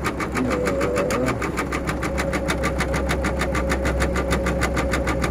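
EM200 computer embroidery machine stitching steadily, its needle striking in an even rhythm of about six stitches a second over a faint steady whine.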